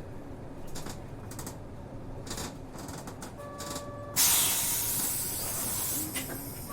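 Inside a city bus: a steady chime sounds for under a second, then a loud hiss of compressed air from the bus's air system starts suddenly and fades over about two seconds, as at the doors working at a stop. The chime starts again at the very end.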